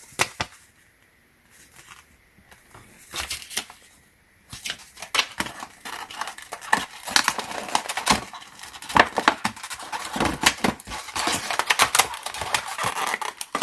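Stiff plastic packaging being handled and pulled apart as a bit set is unpacked: a few separate clicks and crinkles at first, then dense, irregular crinkling and clicking from about four and a half seconds in.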